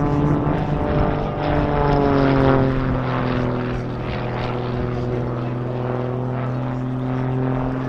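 The Grob Tutor's 180-horsepower Lycoming four-cylinder piston engine and propeller, running steadily as the aircraft flies aerobatics overhead. The engine note falls slightly over the first two seconds or so, then holds steady.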